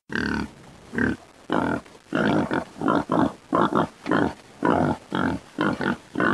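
Red river hogs grunting: a steady run of short grunts, about two or three a second.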